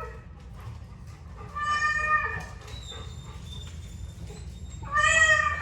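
A cat meowing twice: one meow about a second and a half in and another near the end.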